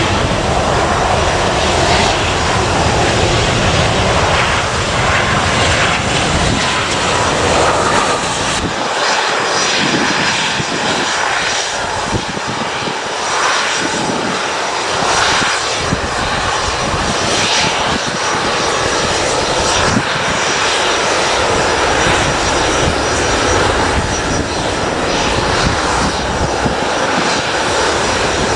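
Airbus A320-232 jet with IAE V2500 turbofans, its engines running steadily on final approach. About nine seconds in, the sound changes to engine noise as the jet rolls out along the runway after touchdown.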